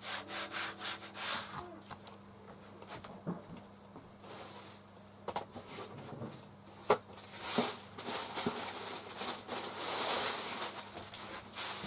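Baren rubbing over thin gampi paper laid on an inked end-grain wood-engraving block: a papery scrubbing of about three strokes a second for the first second or two, pressing the paper down lightly. After that, quieter scattered rustles and light knocks.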